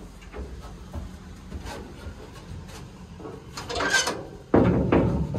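Metal livestock-trailer hardware: light clicks and knocks, then about three and a half seconds in a scraping rattle as a latch pin is drawn out of the trailer gate. About a second later comes a sudden, louder clatter that carries on as the gate is swung open.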